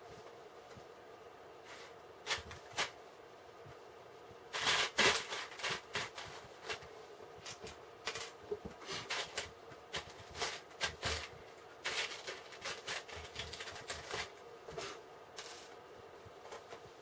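Small plastic building bricks being handled and snapped together, giving irregular light clicks and rattles, with the densest flurry about five seconds in.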